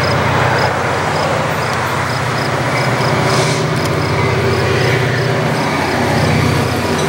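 A lashup of EMD diesel-electric locomotives approaching on a freight train, their engines a steady low drone.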